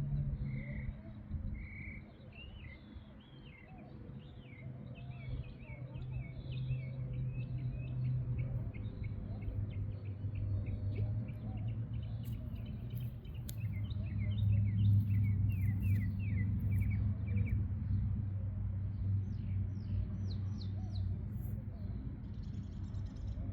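Several songbirds singing, with many quick chirps and trills, over a steady low rumble.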